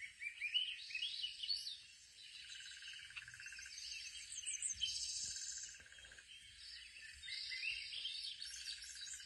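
Birds chirping and trilling, played from a bird video on a tablet: many short quick chirps, with phrases of rapid buzzy trills a few times.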